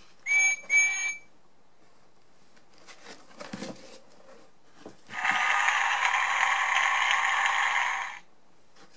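Electronic sound module of a children's sound book, playing two short toots of a steam whistle through its small speaker. A page turns with a soft rustle, then a button click starts a louder, hissy sound effect that lasts about three seconds.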